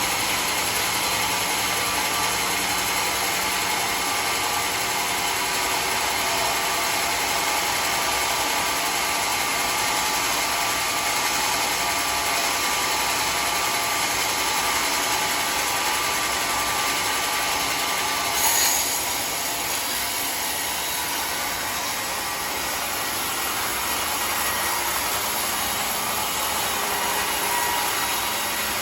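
Sawmill machinery running with a steady, even noise. About eighteen seconds in there is one short, loud knock, and after it the running sound is slightly quieter.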